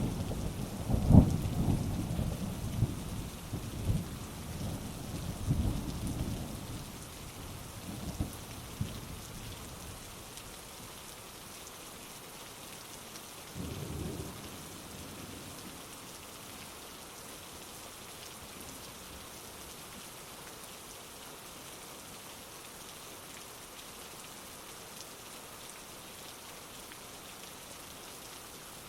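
Heavy rain falling steadily with thunder. A rolling peal of thunder dies away over the first ten seconds or so, a short low rumble comes about halfway through, and then the rain goes on alone.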